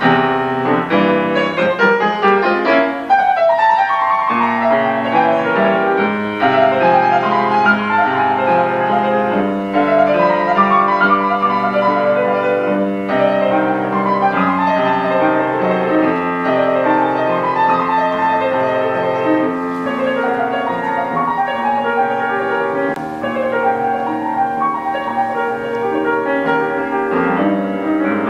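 Background piano music in a classical style, a steady stream of many quick notes.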